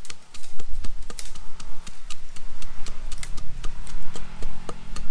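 A knife chopping Thai garlic and chilies on a board: quick, even strikes, about five a second.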